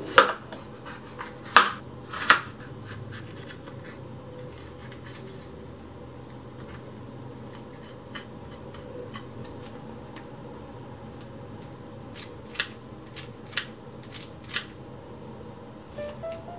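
Kitchen knife cutting a red bell pepper on a plastic cutting board. The blade knocks sharply against the board three times in the first couple of seconds and three more times later, with fainter cutting ticks in between.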